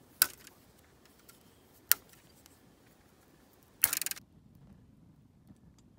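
Lighting tinder for a campfire: two sharp clicks, then a short rasping scrape about four seconds in.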